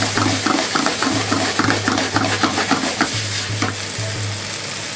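Wooden spatula stirring and scraping chopped vegetables in a non-stick frying pan on a gas flame: a quick run of knocks and scrapes, about four a second, that stops about three and a half seconds in, over the steady sizzle of the food frying.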